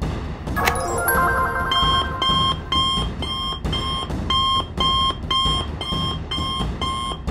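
A short stepped electronic chime, then a rapid electronic alarm beeping about twice a second: a cartoon emergency alert calling for help.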